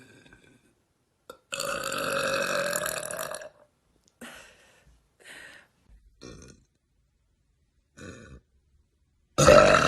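A person burping: one long, loud burp lasting about two seconds, then a few short, fainter sounds, then another loud burp starting near the end.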